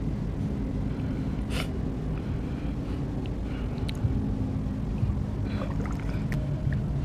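Shallow seawater sloshing with a few small splashes as a hand reaches into the water, over a steady low drone.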